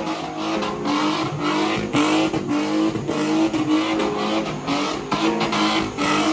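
Toyota DX's 4A-GE 20-valve four-cylinder engine revving up and down about twice a second under hard driving, with tyres squealing.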